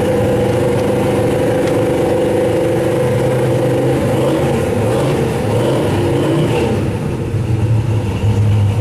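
A car engine running, its pitch wavering a few seconds in before it settles into a steady low hum.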